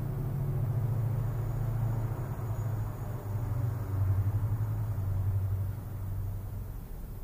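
A low rumble that swells about four seconds in and eases off near the end.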